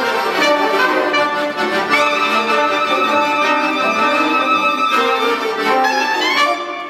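Klezmer band of trumpet, clarinet, viola and accordion playing a bulgar together. A long held note comes in about two seconds in, and a rising glide comes near the end.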